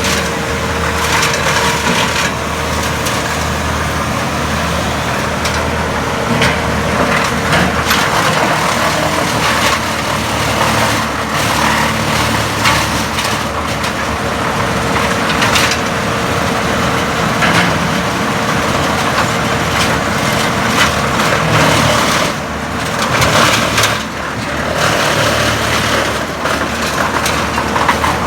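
Wood chipper running under load, its engine drone and a steady whine continuous while branches are fed in and chipped with irregular cracking and crunching.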